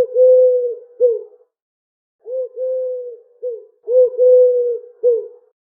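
Pigeon cooing: three phrases, each a short coo, a long held coo and a short coo, on a steady low pitch, with brief pauses between them.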